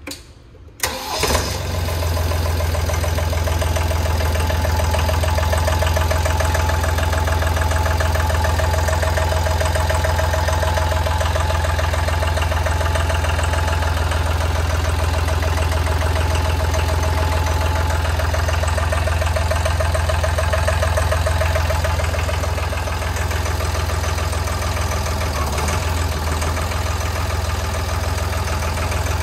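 Three-cylinder Deutz diesel engine on a Simco 2400 drill rig started with the ignition switch: a brief crank, it catches about a second in, then runs steadily.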